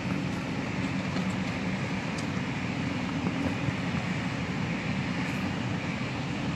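Train passing at speed on the nearby line: a steady, unbroken rumble.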